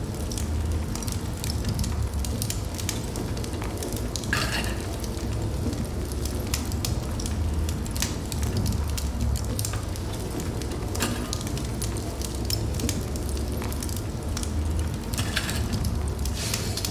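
Wood fire burning in a fireplace: a steady low rumble with frequent small crackles and pops, and short hissing flare-ups about four seconds in and again near the end.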